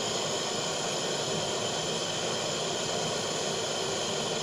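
Butane blowtorch flame hissing steadily, played on a solder ingot to remelt its misshapen end.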